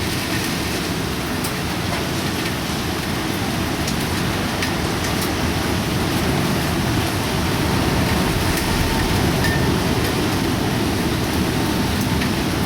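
Typhoon rain and wind: a steady dense rush of heavy rain with deep wind noise, dotted with scattered clicks of drops striking, swelling slightly about eight seconds in.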